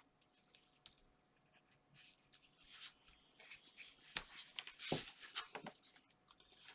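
Paper and card being handled on a craft table: soft rustles and sliding with light taps, and one louder knock about five seconds in.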